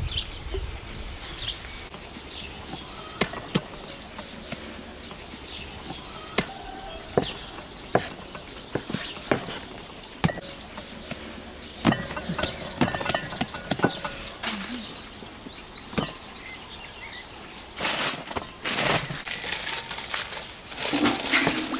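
Sharp, scattered knocks of a metal dough scraper on a wooden board as a mass of dough is cut, over faint bird chirps. Near the end, baking paper rustles and crinkles as it is pressed into a pan.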